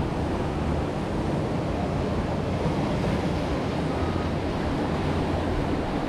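Water rushing steadily around a round river-rapids raft as it floats down the ride's channel.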